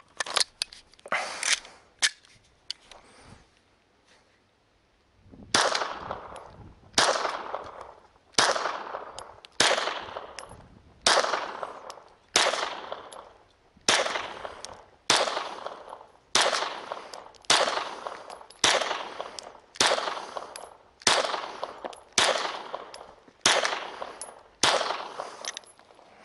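Walther Creed 9mm pistol firing a steady string of about fifteen shots, one roughly every second and a half, each crack followed by a short decaying tail. A few sharp handling clicks come before the first shot, and the string ends with the magazine emptied and the slide locked back.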